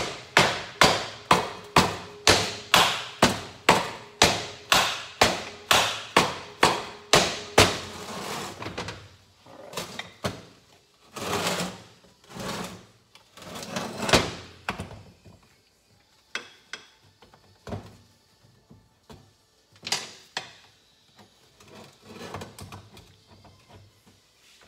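Steady hammer taps on a small two-stroke motorcycle engine's aluminium crankcase, about two a second for the first eight seconds, driving the case halves apart. Then come a few louder knocks and clatters and scattered light knocks as the halves are worked loose.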